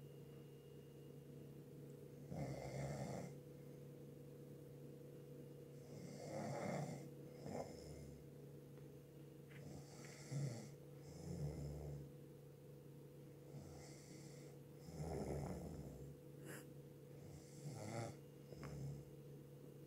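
A sleeper snoring in a steady rhythm, about one snore every four seconds. Each snore comes in two parts, a longer rasping breath followed by a shorter one. A steady low hum runs underneath.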